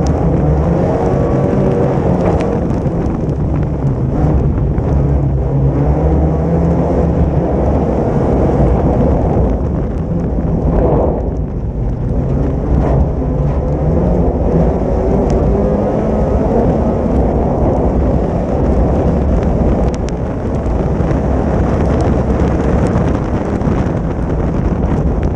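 Folkrace (jokkis) race car's engine running hard under racing load, heard from a camera mounted on the car, its revs rising and falling through the gears with a brief dip about eleven seconds in, over a low rumble of the car on wet gravel.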